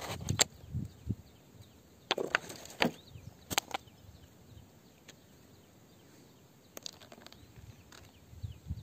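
Scattered clicks and short scrapes of fingers picking small clear crystals off a rock surface, loudest in a cluster in the first four seconds. Faint short high chirps repeat in the background.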